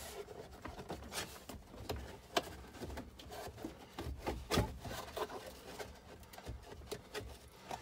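Rubbing and rustling with scattered small clicks as the paper heater control plenum and pleated defroster duct hoses are pushed into place by hand, with two sharper knocks about two and a half and four and a half seconds in.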